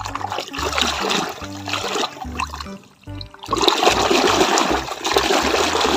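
Muddy water sloshing and splashing as a toy car is swished vigorously through a shallow pool by hand, in two spells with a brief lull about halfway.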